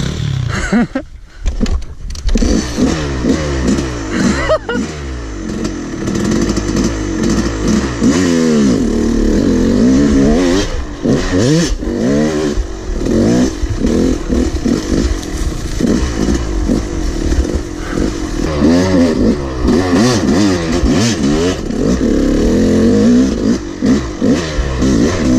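Yamaha dirt bike engine being ridden hard along a dirt trail, revving up and dropping back over and over as the throttle opens and closes. The engine noise briefly drops away about a second in.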